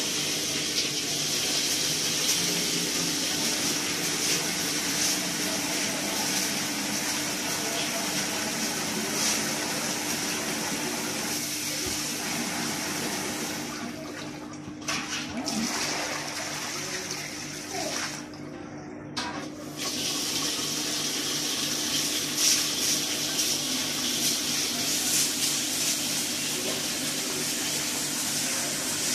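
Water running from a wall tap into a steel basin, splashing as a hand works in it; the flow stops briefly a couple of times midway. A faint steady hum sits underneath.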